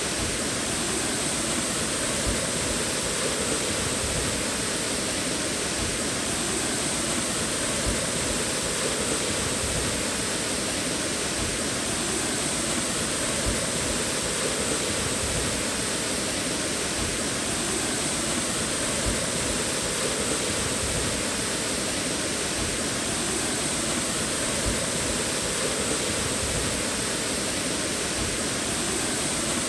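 Waterfall: a steady, unbroken rush of falling and splashing water.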